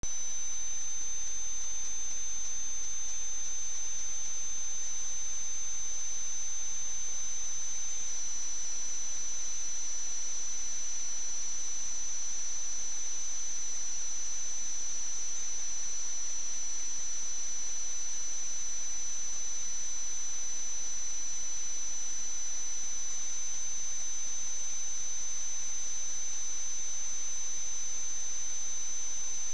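A steady high-pitched electronic whine, with a fainter lower tone beneath it, over constant hiss; the pitch shifts very slightly about eight seconds in.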